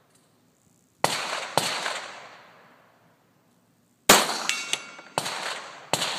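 Glock 17 9mm pistol shots with a ringing tail: two about a second in, then three more from about four seconds in. Shortly after the shot at about four seconds, a brief metallic ring sounds: a bullet striking a steel target.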